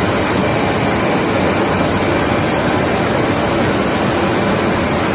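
Large Waldrich Siegen semi-NC heavy-duty lathe running with a big cylindrical workpiece mounted: a loud, steady machine noise with faint high-pitched whining tones over it.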